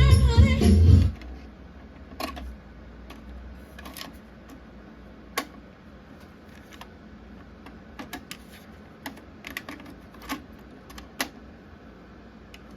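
Music playback from a JVC TD-W309 cassette deck stops about a second in. Then come a dozen or so sharp mechanical clicks at uneven spacing, typical of the deck's transport buttons and tape mechanism being worked.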